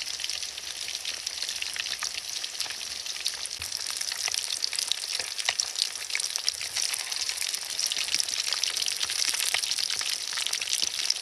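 Fish frying in hot oil: a steady sizzle with many small crackles and pops.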